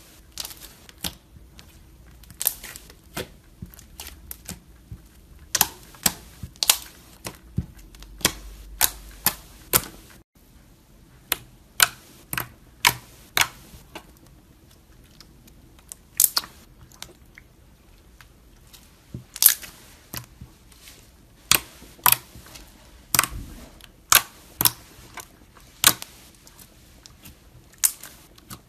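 Thick slime squeezed and poked by hand, giving sharp, irregular clicks and pops as air pockets in it burst, about one or two a second.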